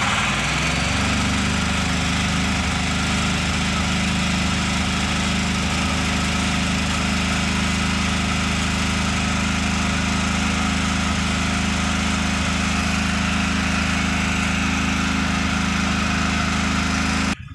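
Tata Ace Zip's diesel engine running steadily, heard from inside the cab, settling to an even note about a second in. It now runs after a broken cam sensor wire was reconnected, which cured its failure to start.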